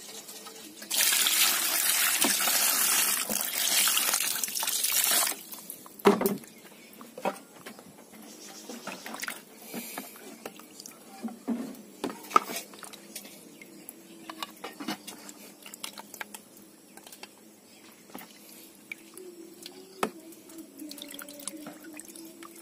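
Water splashing in a basin as fresh fish are rinsed for the last time. A loud rush of water starts about a second in and lasts about four seconds, followed by scattered small splashes and knocks as the fish are lifted out.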